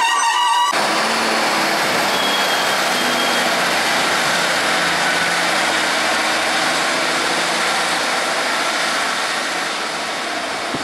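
Class 150 Sprinter diesel multiple unit pulling away from a platform, its underfloor diesel engines working under power. The engine and wheel noise is steady at first and slowly eases off as the train draws away.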